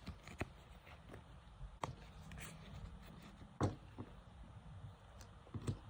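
Faint handling noises of small plastic toy pieces and packaging being picked up and set down: scattered light taps and rustles, the loudest a little past halfway.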